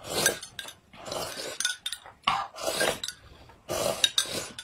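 Two people slurping hot corn soup off spoons from glass cups: a string of about half a dozen short, noisy sips, with spoons clinking against the glass in between.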